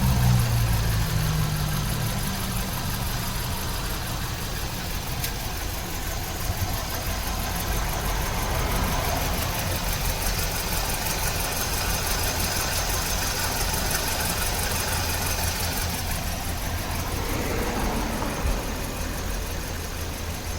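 2006 Kia Rio's 1.6-litre four-cylinder engine settling from a higher speed to a steady idle in the first couple of seconds. The engine has a random misfire.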